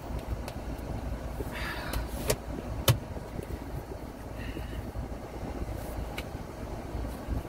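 Steady low rumble inside a car's cabin, with a brief rustle and two sharp clicks about two and three seconds in.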